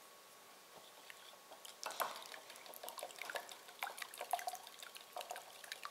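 Wire whisk beating eggs and caramel ice cream topping in a glass mixing bowl: faint, quick, irregular clicks of the whisk against the glass with wet liquid sounds, starting about a second and a half in.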